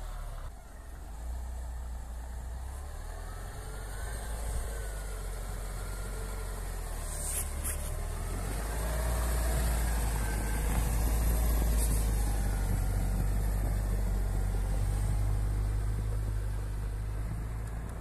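Car engine running as the car drives along a snowy forest track. Its pitch rises and falls, and it grows louder around the middle.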